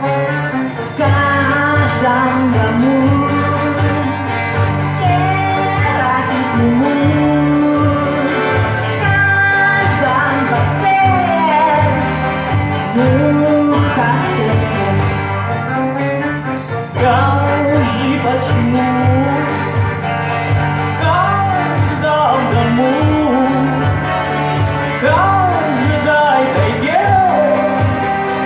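A song: a singing voice carries a melody over instrumental backing with a steady beat and bass.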